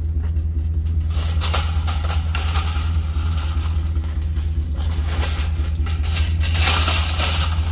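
Wire shopping cart being pulled out of a nested row and rolled over asphalt: the metal basket rattles and the casters clatter, from about a second in, loudest near the end. A steady low hum runs underneath.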